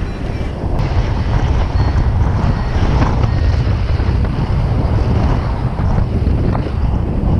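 Airflow buffeting the microphone in paraglider flight: a loud, deep, steady rush that grows louder about a second in, as the glider banks into a steep turn.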